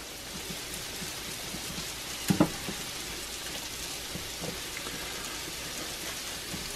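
Scrambled eggs sizzling softly in a hot skillet while being stirred and pushed around with a silicone spatula. A brief hum of a voice is heard about two seconds in.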